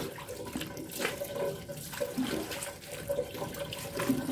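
Water from a garden hose running into a plastic basin full of water, with a hand sloshing and splashing among plastic flowers as they are rinsed.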